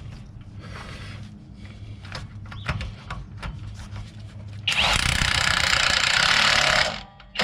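Light clinks and knocks of tools and parts being handled, then a power tool runs steadily for about two seconds and stops.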